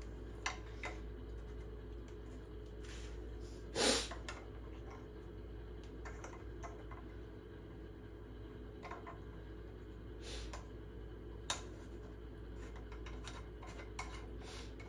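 Scattered light clicks and knocks from handling tap and plumbing parts at a sink, over a steady low hum, with one louder brief rushing burst about four seconds in.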